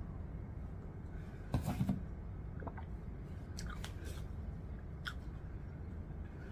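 Close-up eating sounds: the last of a cup of soup drunk down, then chewing, with a quick cluster of sharp clicks and smacks about a second and a half in and a few fainter clicks after.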